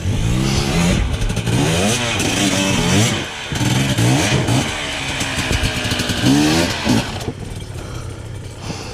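Off-road motorcycle engine revving up and down again and again under load as it climbs over rocks, its pitch rising and falling several times. About seven seconds in it drops back to a lower, steadier running.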